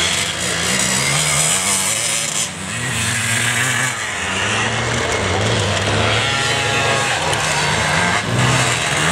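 Vintage enduro motorcycle engine running and revving as the bike rides off-road, its note rising and falling with the throttle.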